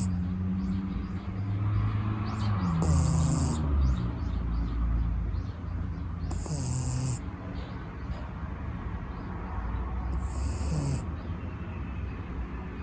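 A six-month-old Shiba Inu puppy snoring in its sleep, in slow, even breaths about every three and a half seconds. Each breath has a low rumble and a high, airy hiss.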